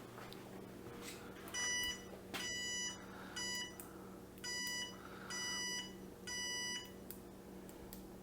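GOTINSN bike turn-signal tail light's beeper sounding six short electronic beeps, each about a third to half a second long, spaced roughly a second apart.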